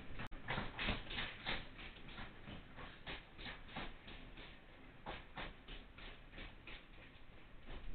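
Train wheels clacking over rail joints and switches as a locomotive-hauled train rolls slowly through the station tracks: a rapid, uneven run of sharp clicks, several a second. The sound cuts out briefly just after the start.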